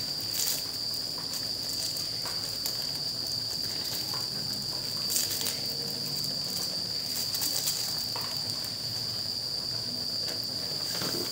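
A cricket chirring steadily at one high pitch, with a few light clicks of a utensil in the pot.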